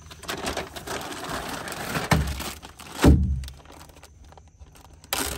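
Plastic bags of bait crinkling and rustling as they are handled on a plastic hull. Two dull thumps come about two and three seconds in, the second the loudest, and there is another short rustle near the end.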